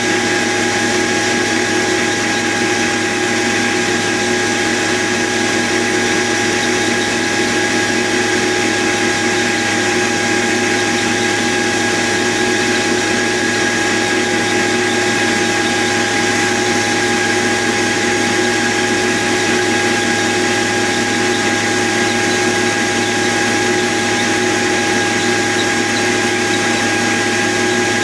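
Metal lathe running steadily, its motor and drive giving a constant whine over a low hum, while a boring bit fed from the tailstock cuts the bore of a model steam engine cylinder.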